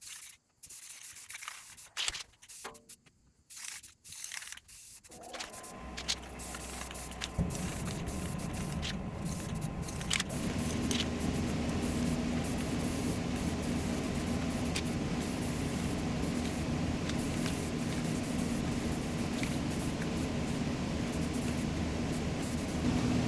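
Aerosol spray-paint can hissing in short bursts. About five seconds in, a steady, louder mechanical drone with a hum takes over.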